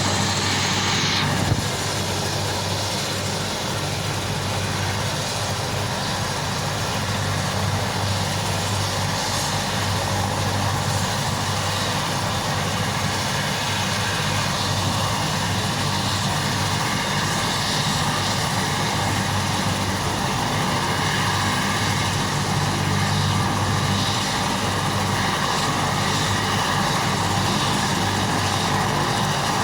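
Helicopter running steadily: a continuous engine and rotor drone with a low hum.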